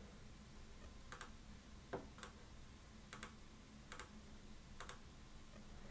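Faint computer mouse clicks, about seven short single clicks spread irregularly, over near-silent room tone.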